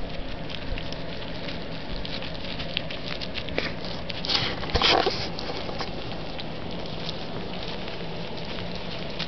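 Chihuahua puppies eating wet food from a metal tin: many quick little licking and smacking clicks with light rustling, and a louder scuff about four and a half seconds in.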